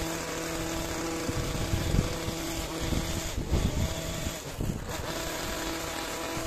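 Small engine of a pole hedge trimmer running steadily while cutting a hedge, with a few irregular low thumps on the microphone about two seconds in and again a little later.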